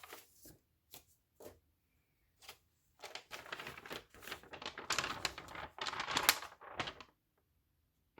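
Packaging being handled while unboxing a keyboard: a few separate taps, then about four seconds of dense crinkling and rustling that stops shortly before the end.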